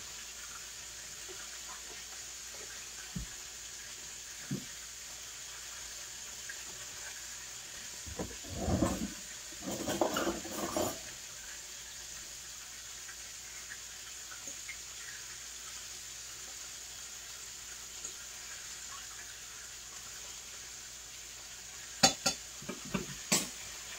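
Chicken wings frying in oil in a skillet: a steady sizzling hiss. Pans and utensils clatter about a third of the way in, and there are a few sharp knocks near the end.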